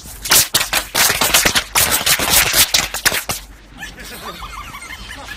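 A string of firecrackers going off: a rapid volley of sharp cracking bangs that lasts about three seconds and then stops.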